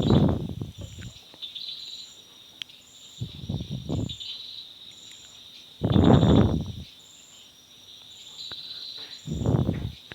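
Crickets chirping: a steady high trill with a short higher chirp about once a second. It is broken four times by loud, low rushing bursts, each about a second long.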